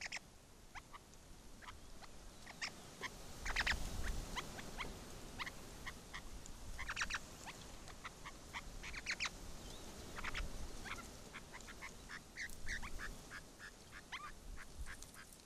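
Partridges giving short, sharp chirping and clucking calls in scattered clusters, busiest around four, seven and ten seconds in.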